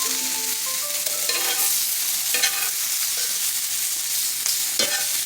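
Eggplant and Brussels sprouts sizzling steadily as they sear in a hot skillet, with a utensil scraping and stirring against the pan a few times, about a second and a half in, again near the middle and near the end.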